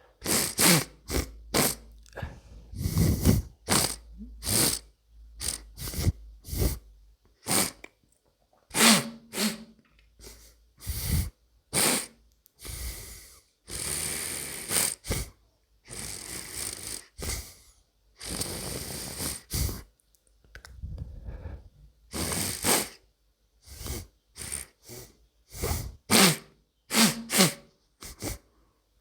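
Sniffing and snorting through a congested, mucus-blocked nose: a long run of short, irregular snorts and sniffs, some with a low wet rasp, broken by a few longer hissing breaths through the nose.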